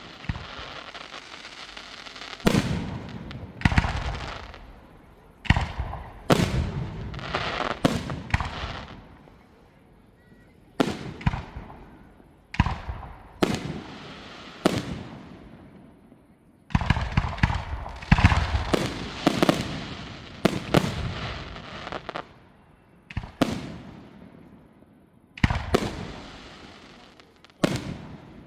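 Aerial fireworks shells bursting: a series of sharp bangs at irregular intervals, each trailing off in an echoing tail, with a dense barrage of bangs around two-thirds of the way through.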